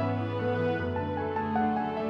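Slow, soft instrumental background music, sustained tones with a gently moving melody.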